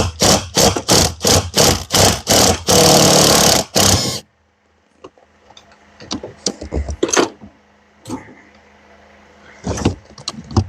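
Power impact wrench hammering in about ten short trigger bursts, then held for about a second, loosening a tight bolt on the engine. Quieter clicks and clinks of tools follow.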